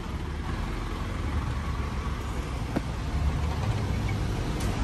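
Isuzu Elf box truck's diesel engine running as the truck pulls away, a steady low rumble. A brief click sounds nearly three seconds in.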